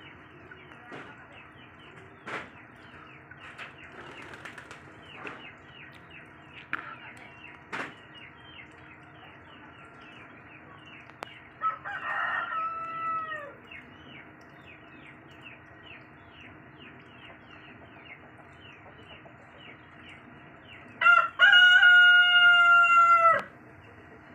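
Rooster crowing twice: a fainter crow about halfway through, then a loud, long cock-a-doodle-doo near the end.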